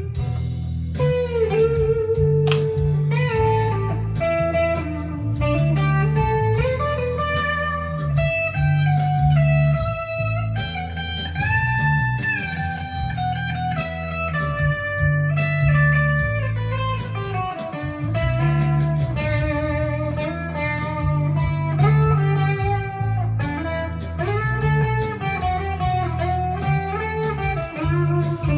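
Electric guitar, a Jackson Dinky JS22, played through a Fender Mustang LT25 amp on its '60s Fuzz' setting. It plays single-note lead lines with held, sustaining notes and string bends that glide up in pitch, in a bluesy style.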